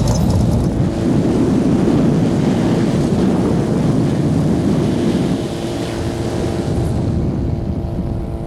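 Car engines running, with a rush of wind noise on the microphone that eases about five seconds in; a steady engine drone comes through near the end.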